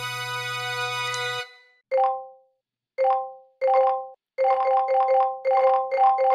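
A bright, sustained celebratory chime for about a second and a half, then smartphone notification dings: a few single ones about a second apart, then coming faster and faster, several a second, as a flood of incoming messages arrives.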